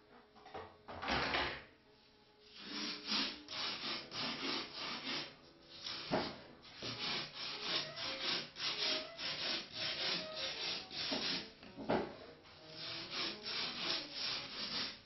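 Hand sanding on a foam fuselage plug: rhythmic rubbing strokes, about two to three a second, after a single stroke about a second in.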